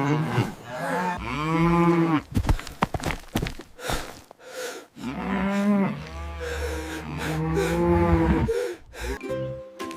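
Cow mooing, several long drawn-out moos one after another, with a few sharp knocks between the first and second.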